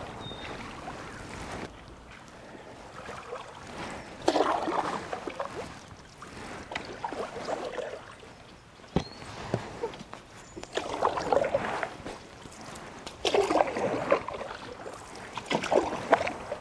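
Canoe paddle strokes in calm river water, a swash and drip every two to three seconds, with one sharp knock about midway.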